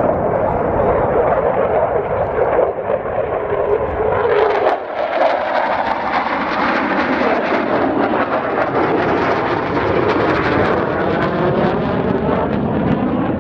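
F-16 Fighting Falcon fighter jet's engine, a loud continuous roar as it flies its display overhead. About five seconds in, the sound changes abruptly, then takes on a slow sweeping pitch as the jet passes.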